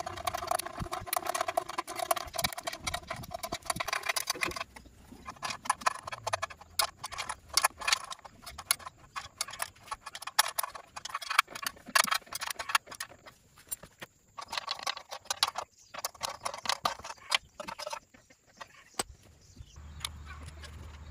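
Quick, irregular metallic clicks and taps of a wrench working the bolts on a Lambretta scooter engine's metal cylinder cowling.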